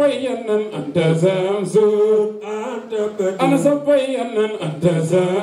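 Men singing an unaccompanied Islamic devotional chant in praise of the Prophet Muhammad (a Mawlid praise song), voices amplified through microphones.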